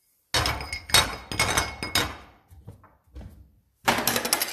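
Dishes and dishwasher racks being handled while loading a dishwasher: a quick run of clattering knocks and clinks with ringing, a short pause about three and a half seconds in, then more clattering.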